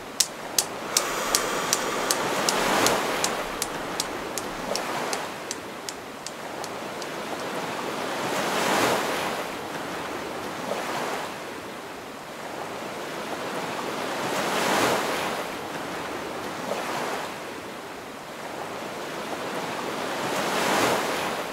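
Newton's cradle clicking, its steel balls knocking about three times a second, the clicks coming quicker and fading away over the first six seconds as the swing dies down. Under it, shallow waves wash and splash on the shore, with a slow deep breath in and out swelling about every six seconds.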